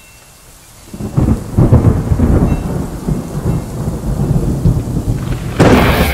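Thunderstorm sound effect: a long, low rolling rumble of thunder with rain, starting about a second in, then a sharper, brighter crash near the end.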